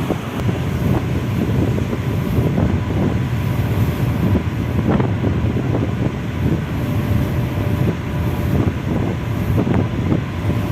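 Strong wind buffeting the microphone in uneven gusts over a steady low rumble.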